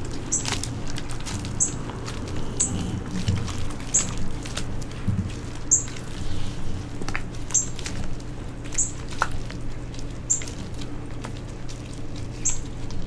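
Royal blue dyed chalk being crushed: a steady crunching of small crackles and soft thuds, with a short crisp crunch about once a second.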